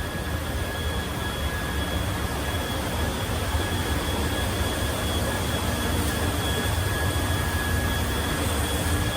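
Grain-handling equipment running steadily as it fills a storage building with soybeans: a constant low rumble with a hiss over it and a faint steady whine.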